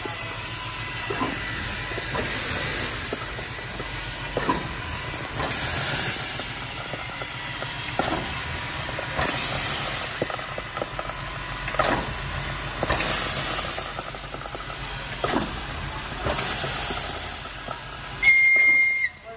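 A standing 1953 steam locomotive hissing steadily, its steam machinery working in slow strokes: a knock and a puff of hissing steam about every three and a half seconds. Near the end a short, loud, high whistle sounds for under a second.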